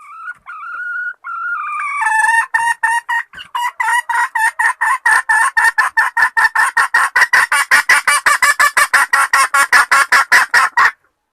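Junglefowl hen calling to solicit mating: a short wavering call, then a long rapid run of clucks at about five a second that stops abruptly.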